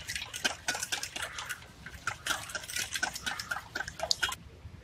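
Eggs being beaten by hand in a bowl: a utensil clicks quickly and unevenly against the bowl through the liquid egg, then stops near the end.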